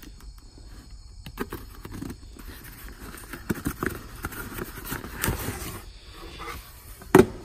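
Cardboard box being handled and opened: scraping and rustling of the cardboard lid and flaps, with scattered light clicks and one sharp knock near the end.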